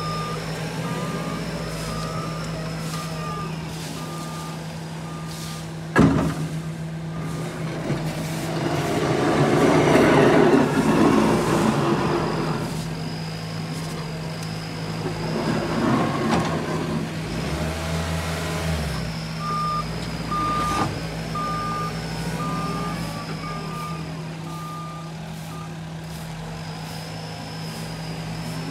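Diesel engine of heavy waste-collection equipment running steadily while a backup alarm beeps: at the start, and again for about six seconds in the second half. There is a sharp bang about six seconds in, and loud crashing and rustling of debris swells around ten seconds and again around sixteen seconds.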